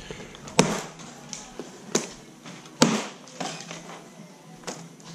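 Plastic strapping bands and cardboard carton of a boxed fridge being cut and handled: a series of sharp snaps and knocks, the three loudest in the first three seconds, with lighter taps between.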